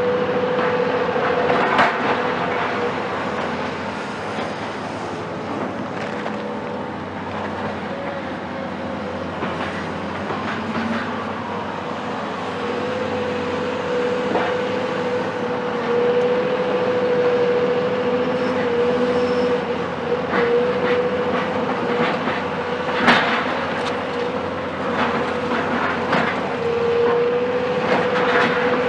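Cat 374 hydraulic excavator demolishing a building, its Cat C15 diesel running with a steady whine over it, among repeated clattering and crashes of breaking concrete and falling debris, the loudest crash about 23 seconds in.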